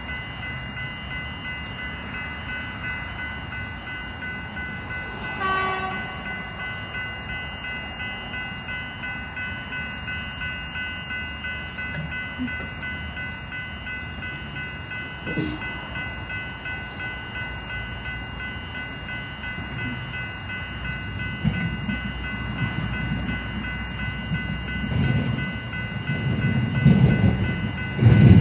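Level crossing warning bells ringing steadily, with a short train horn blast about five seconds in. From about twenty seconds in, the rumble of an approaching train grows steadily louder.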